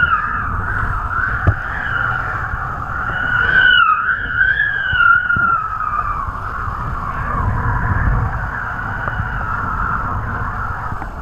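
Wind whistling over the line-mounted camera rig of a kite in flight: a high tone that wavers up and down in pitch, over a low wind rumble on the microphone and the hiss of the kiteboard skimming the water.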